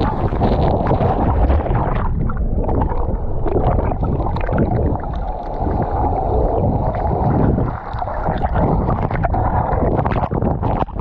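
Waterfall plunge-pool water churning loudly, heard through an action camera that dips below the surface: a steady rushing and bubbling that turns muffled about two seconds in.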